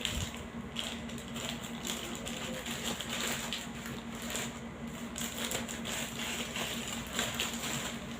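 Plastic courier pouch and bubble wrap crinkling and rustling as a parcel is opened and handled by hand, with irregular small crackles and clicks.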